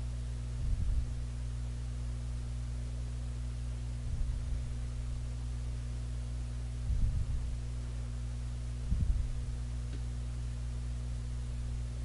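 Steady low electrical hum with four dull low thumps a few seconds apart, from the salmon being handled and cut on a cutting board.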